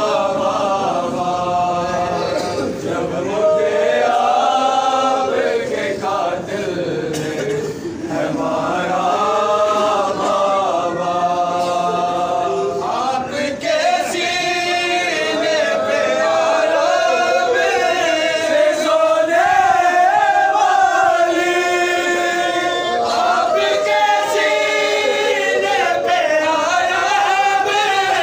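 Men's voices chanting an Urdu noha, a Shia lament, in unison: one continuous melodic line that grows fuller from about halfway.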